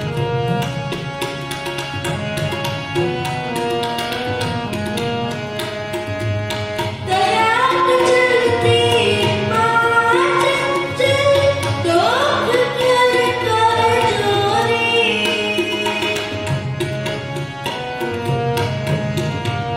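Kirtan music: harmonium playing held chords with tabla keeping the rhythm. About seven seconds in, a boy's voice comes in singing the shabad over them and the music grows louder, and the singing eases off a few seconds before the end.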